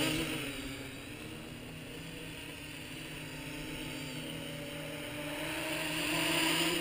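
Mini quadcopter's electric motors and propellers buzzing in flight, fading about a second in as it moves away and growing louder again near the end as it comes back close.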